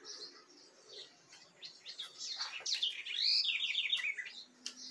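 Small songbirds chirping, quiet at first, then near the middle an arched whistled note followed by a quick run of evenly repeated high notes.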